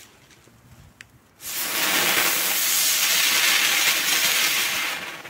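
Small F1 youth firework fountain: the lit fuse burns with faint crackles, then about one and a half seconds in the fountain ignites with a sudden, loud, steady hiss that dies away near the end.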